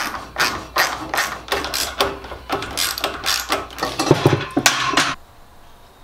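Rapid, irregular metallic clicks and clanks from hand tools working on the mounting of an old ceiling-hung garage door opener as it is unbolted and taken down; the clatter stops about five seconds in.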